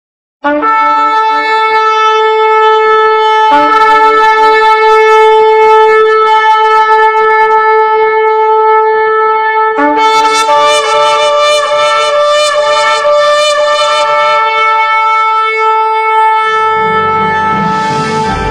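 Long, loud horn blasts held on one steady pitch, sounded anew about three and a half and ten seconds in, with a higher horn tone joining at the third blast. Near the end, music with a low bass part comes in.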